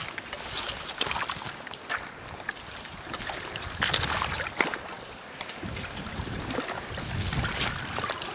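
Footsteps splashing through mud and shallow water on a waterlogged path as a loaded bicycle is pushed alongside, with irregular splashes and knocks.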